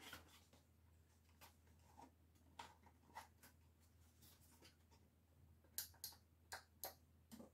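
Faint, irregular small plastic clicks from the control knobs on a new Meiauto head unit being turned and pressed to check that they work, with a cluster of sharper clicks near the end.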